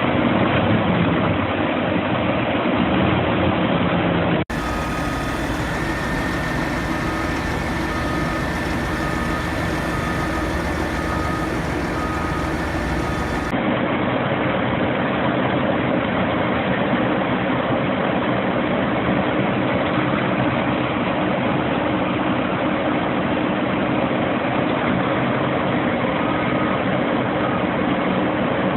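Vermeer HG6000 horizontal grinder's diesel engine running steadily. A cut about four seconds in brings a brief stretch where a short high beep repeats a little more than once a second over the engine.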